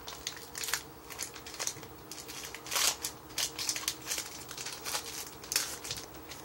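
Foil Yu-Gi-Oh booster pack wrapper crinkling and crackling as it is torn open and pulled apart by hand, in quick irregular bursts.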